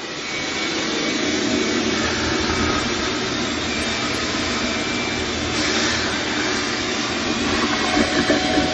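Wet/dry shop vacuum comes on and runs steadily, its hose sucking the standing water out of a toilet bowl, a little uneven near the end.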